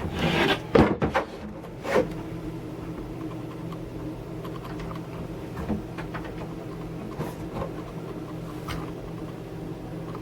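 A few sharp knocks and clatter in the first two seconds from the hard plastic case parts and the hammer being handled, then a steady low hum with a few faint light clicks.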